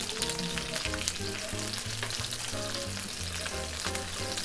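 Bone-in chicken thigh sizzling and crackling in hot oil in a frying pan as the oil is ladled over its skin to baste it. Quiet background music with low stepped notes plays underneath.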